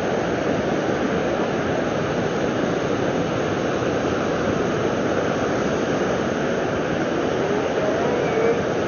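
Steady wash of surf breaking and running up a sandy beach.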